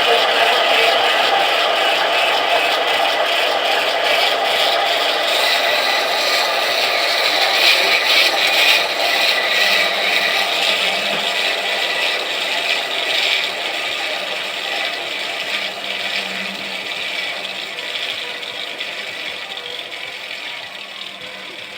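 A steady rattling and scraping noise that slowly fades over the last several seconds.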